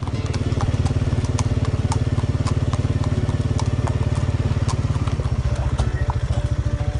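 A small engine running steadily with a fast, even low pulse. Sharp, irregular clicks over it fit horses' hooves on the lane.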